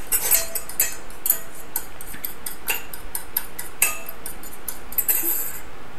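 A fork beating raw eggs in a bowl, clinking against the bowl in quick, slightly uneven taps several times a second.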